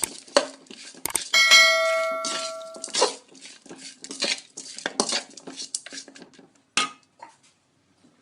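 A metal spoon stirring chicken in a cooking pan: repeated scraping strokes against the pan, with one ringing clang about a second and a half in that fades over a second or so.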